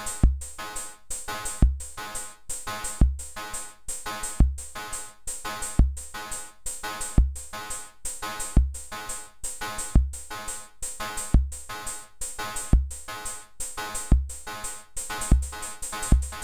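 DIY XORbell module, CMOS XOR-gate metallic noise percussion, playing a looping pattern of clangy cowbell- and hi-hat-like hits. A deep kick drum falls about every second and a half beneath them.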